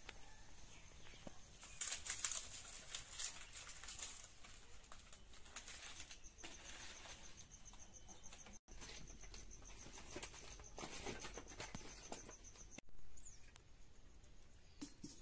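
Dry palm fronds rustling as they are carried, loudest a couple of seconds in. Through the middle, a high chirping repeats at an even pulse. Shortly before the end there is a brief bump.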